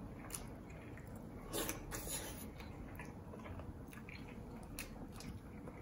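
Faint chewing and mouth sounds of people eating a seafood boil, with a few soft clicks and squishes as a prawn's shell is peeled by hand.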